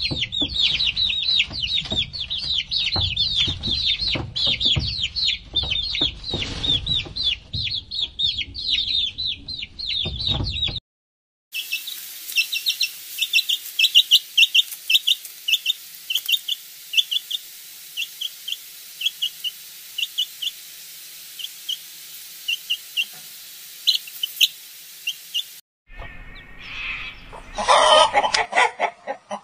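Domestic chicks peeping. First a crowded brood calls over one another in rapid high peeps. After a short break, a single chick gives sparse, spaced peeps over a steady hiss. Near the end a hen clucks among the chick's calls.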